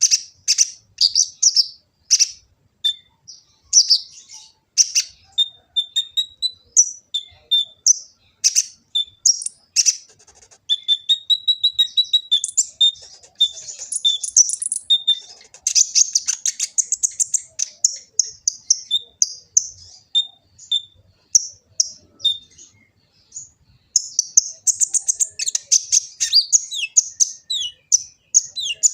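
A sunbird ('kolibri ninja') singing a long, fast, varied song of high, thin chirps and short trills, broken by a couple of brief pauses.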